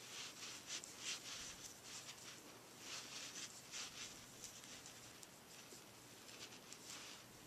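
Faint, soft rustling and scratching of yarn being drawn through stitches by a crochet hook, in short irregular strokes.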